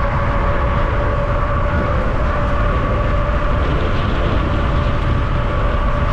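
Riding noise from an e-bike under way: wind buffeting the microphone, with a steady high whine from the electric motor.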